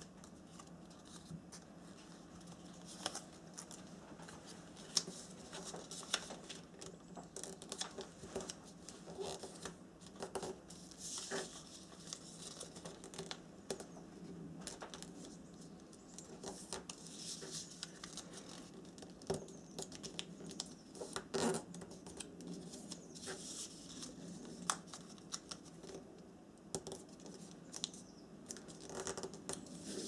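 Origami paper being folded by hand: irregular rustling and scraping as fingers press and run along the creases, with scattered sharp clicks of the paper against the wooden tabletop.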